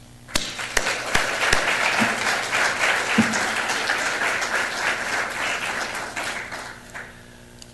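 Audience applauding: a few separate claps, then a full round of applause that dies away about seven seconds in.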